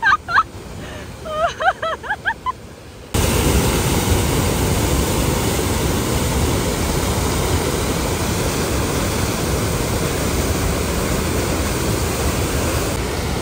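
Steady rush of a waterfall's falling water, cutting in abruptly about three seconds in.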